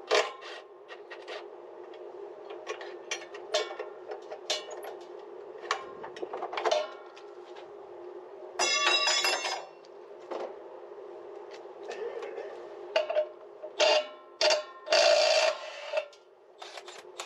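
Tools clinking and knocking against the metal parts of a corn planter row unit during disassembly, with scattered sharp clicks and two rasping bursts of about a second each, one near the middle and one near the end, over a steady low hum.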